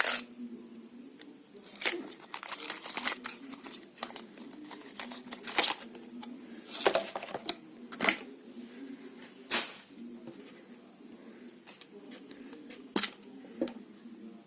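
Handling noises: scattered sharp clicks and taps with rustling of plastic and packaging as a battery is fitted into a Philips Bodygroom trimmer.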